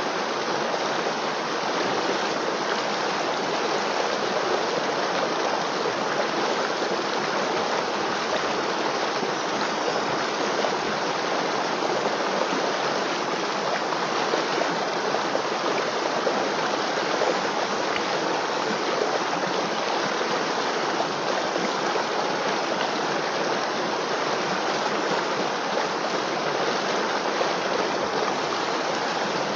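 River water flowing steadily, an even rushing with no breaks or changes.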